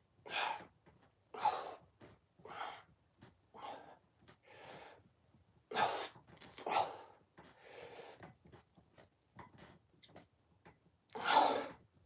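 A man breathing hard in rhythm with bench dips: sharp, forceful breaths about once a second, the loudest near the end.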